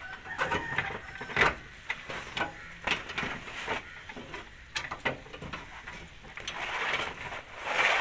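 Toyota Innova's underslung spare-wheel chain winch being cranked down with the jack rod, clicking irregularly as the spare tyre lowers, with a louder scraping noise near the end.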